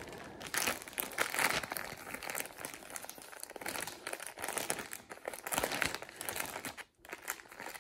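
Plastic poly mailer bag crinkling and rustling in irregular bursts as hands pick and tug at its sealed end to open it.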